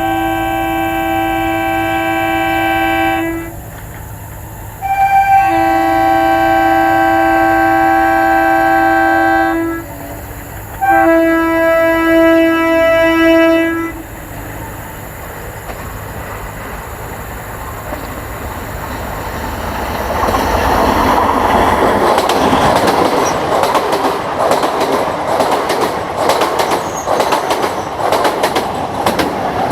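A train's air horn sounds three long blasts, the third broken into short pulses. Then the train runs past with rising wheel and track noise and rapid clickety-clack over the rail joints.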